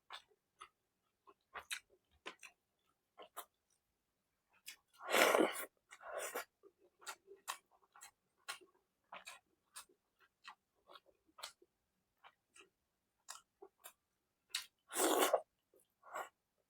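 Close-miked eating: wet chewing and lip-smacking clicks, scattered irregularly, with two louder, longer mouth sounds about five seconds in and again near the end.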